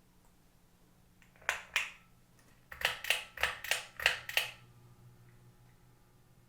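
A series of sharp clicks: two about a second and a half in, then six more in quick succession at roughly three a second, over a faint steady low hum.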